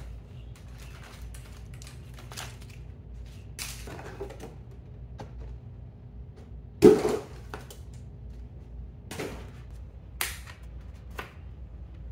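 Scattered knocks, clicks and rustles from handling riding-mower parts and cardboard packaging during assembly, with one loud thump about seven seconds in.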